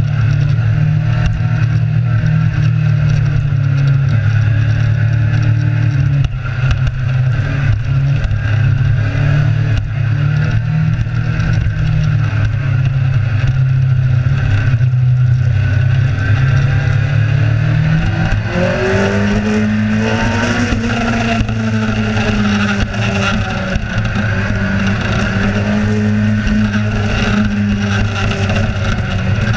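Kawasaki Z1000 inline-four motorcycle engine running under way at steady revs, then rising and falling with the throttle from about eighteen seconds in.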